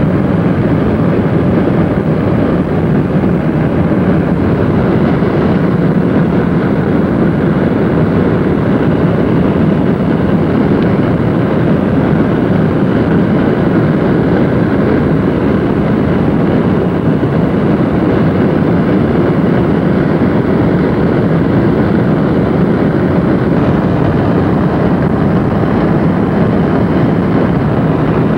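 Steady road and wind noise of a car travelling at highway speed, heard from inside the cabin.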